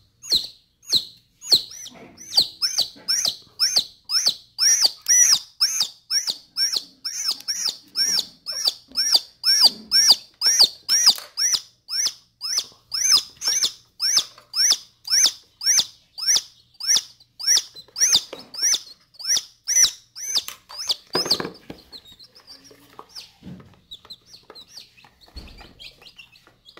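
A newly hatched chick peeping loudly and insistently while held in a hand, with sharp high down-sweeping peeps about two a second: the distress call of a chick being handled. Near the end a soft knock is heard, and the peeping turns fainter and more scattered.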